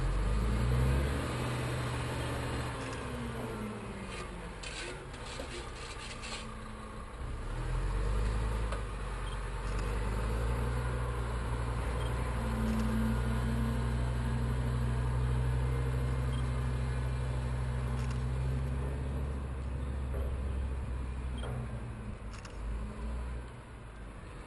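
Diesel engine of an articulated dump truck working hard while it tips a load of sand. The revs rise about eight seconds in, hold high for some ten seconds, then drop back.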